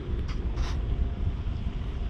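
Wind rumbling on the camera microphone, with two brief rustles about a third and two-thirds of a second in.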